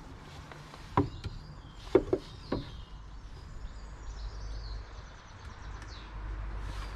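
Four light knocks and clacks between about one and two and a half seconds in, from hard objects being handled. Then a faint, steady low rumble of outdoor background.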